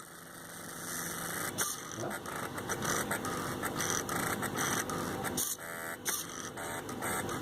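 Stepper motors of a home-built CNC machine driving its axes in a string of short moves with brief pauses between them, a buzzing whine that changes with each move.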